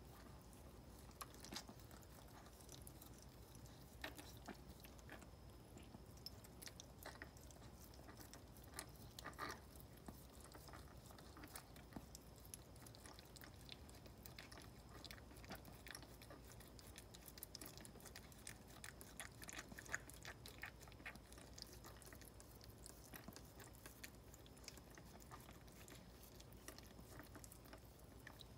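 Maltese mother dog licking and cleaning her newborn puppies: faint, irregular wet clicks and smacks of her mouth and tongue.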